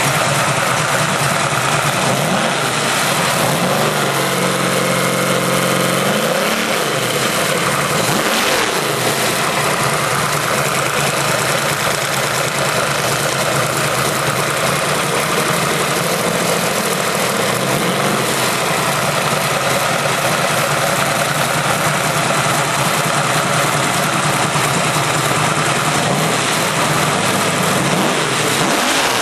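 Freshly built 363 Ford stroker small-block V8 (Dart block, forged internals, roller cam) running on an engine test stand. It idles steadily, with the throttle blipped so that it revs up and settles back several times a few seconds in and again near the end. The engine is running cleanly, as a healthy new build should.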